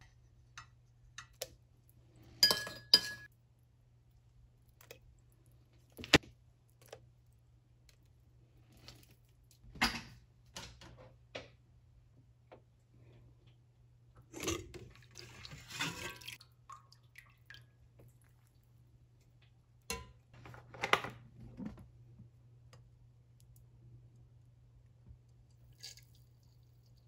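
Scattered clinks and knocks of a metal spoon against a stainless-steel steamer pot. The loudest is a pair of clangs with a brief ringing tone a few seconds in. A steady low hum runs underneath.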